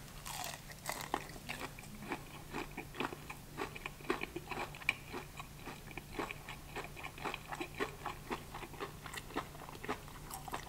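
Close-up chewing of crispy breaded fried shrimp: a steady run of small crunches, about three a second, over a faint steady low hum.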